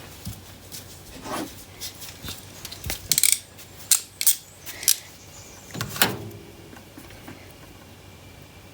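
Small tools and wiring parts being handled while connectors are fitted to the wires: a string of sharp clicks and light clinks, busiest in the middle, with a knock shortly after.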